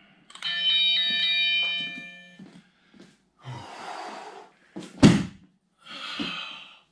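A round-start bell rings for about two seconds at the opening of a timed workout round, then fades. About five seconds in comes a loud thump of a body dropping onto foam floor mats, with softer brushing sounds of movement around it.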